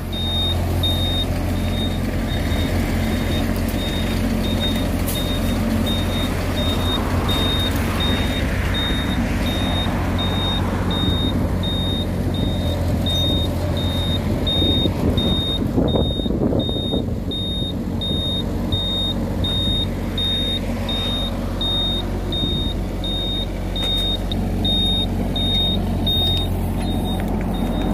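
Kubota mini excavator's diesel engine running steadily, with a high-pitched travel alarm beeping about twice a second.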